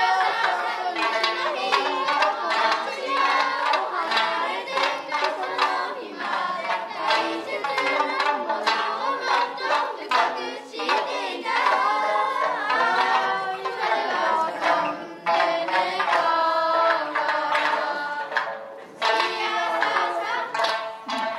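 Music: a melody over quick percussive notes.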